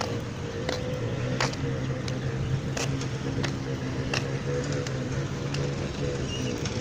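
An engine running steadily with a low, even hum, with light clicks or taps scattered through it every second or so.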